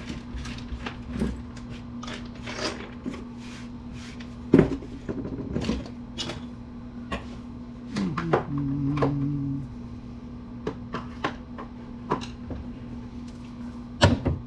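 Small scrap metal pieces and wire from a dismantled desktop computer being handled and sorted on a work surface: scattered clicks and knocks, one louder knock about four and a half seconds in, over a steady low hum.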